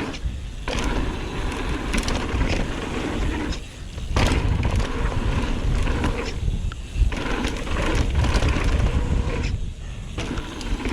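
Mountain bike being ridden along a dirt trail: steady tyre noise and low wind rumble, broken by frequent rattling knocks from the bike over rough ground, easing briefly about four seconds in and near the end.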